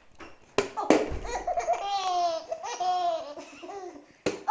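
A baby laughing in a fit of giggles: a run of high-pitched laughs and squeals, with two knocks about half a second to a second in, the second with a low thud.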